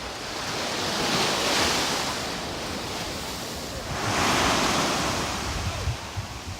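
Ocean surf washing in twice, each rush of water building and fading over about two seconds.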